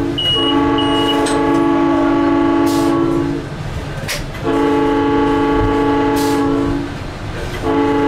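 Train horn sounding three long blasts, with short breaks between them; the last is still sounding at the end. Two short high-pitched beeps come in the first second, and there is a brief click midway.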